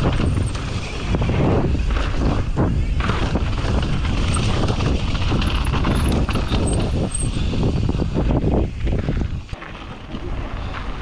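Mountain bike riding down a rough trail, heard from a helmet camera: tyre noise and the knocks and rattles of the bike over rocks and roots, with wind on the microphone. It quietens briefly near the end.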